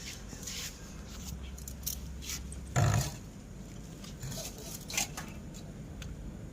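Scattered light clicks and scrapes of hands and metal parts being handled during a motorcycle oil drain, with one loud dull thump about three seconds in.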